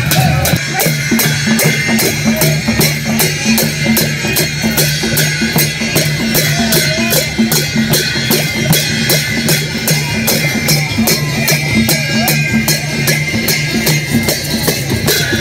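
Sakela dance music with a quick, steady percussion beat.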